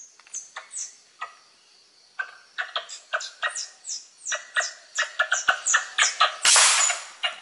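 Squirrel giving a rapid series of sharp, chattering alarm chirps, each with a quick downward sweep. They are sparse at first, then come about four a second from about two seconds in, with a louder rasping burst near the end.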